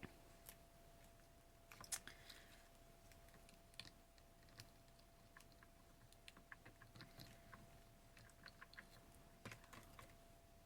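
Faint, irregular clicks and taps of paper pieces being handled and fitted together, over a faint steady hum.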